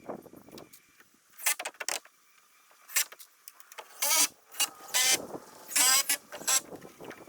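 Several short whirring bursts of a small motor, each under half a second, the pitch bending as it loads, with sharp knocks between them.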